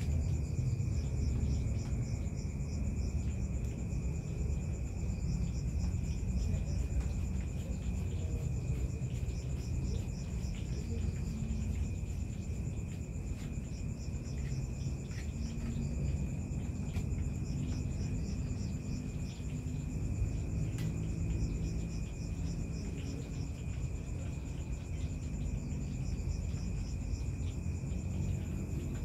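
Night insects, crickets trilling steadily at two high pitches, with short groups of rapid chirps coming in every few seconds, over a steady low rumble.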